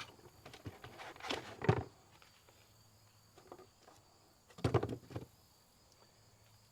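Handling noise from unboxing a chainsaw sharpener: parts and packaging rustled and knocked together in two short bursts, about a second in and again near five seconds.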